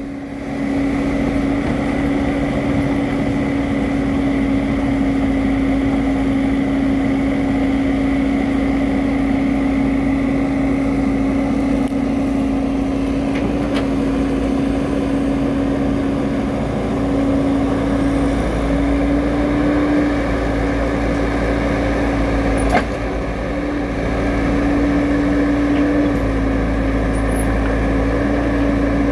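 Caterpillar crawler excavator's diesel engine and hydraulics running steadily under load while digging and lifting soil, a loud steady drone whose pitch rises and dips slightly as the arm works. A single sharp knock comes late on.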